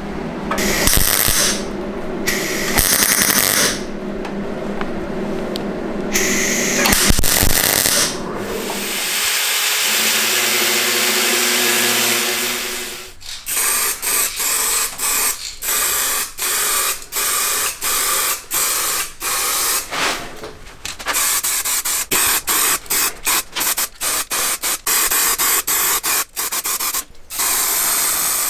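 MIG welder laying short tack welds on car body steel, a few separate crackling bursts, followed by a steady hiss of about five seconds. Then an aerosol can of primer sprayed onto bare steel in many short hissing bursts.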